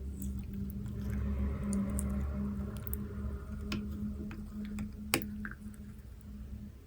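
Sticky slime squishing and crackling as it is worked, with scattered small clicks and one sharp click about five seconds in.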